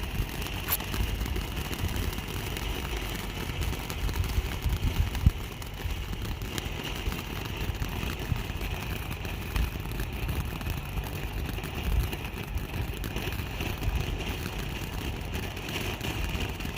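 A firework set on the ground, burning with a steady hissing spray and a few faint crackles, over a low rumble.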